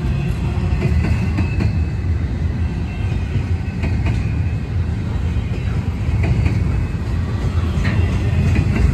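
Double-stack intermodal freight train's well cars rolling past close by: a steady low rumble with wheels clacking over rail joints and a faint thin squeal from the wheels at times.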